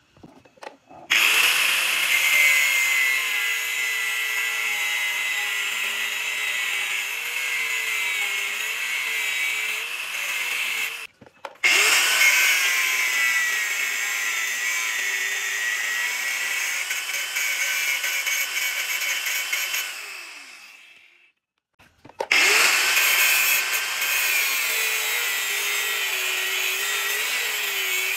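Angle grinder with a thin disc grinding into a steel rebar held in a vise, a steady whine that dips and wavers as the disc bites the metal. It starts about a second in, stops briefly near eleven seconds, winds down and goes quiet around twenty-one seconds, then starts again.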